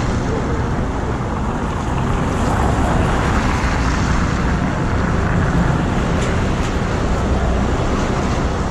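Heavy-duty diesel engine of a rotator wrecker running steadily, working the boom hydraulics while the truck holds a load of about 21,000 lb.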